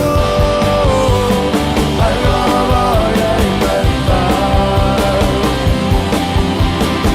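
Rock music with a steady drum beat and a sung vocal melody.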